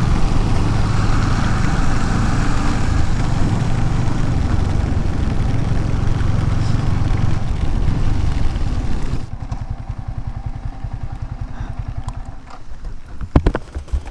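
Motorcycle running at speed with heavy wind rush on the microphone. About nine seconds in, the wind noise drops suddenly, leaving the engine's rapid low firing pulses, with a few sharp clicks near the end.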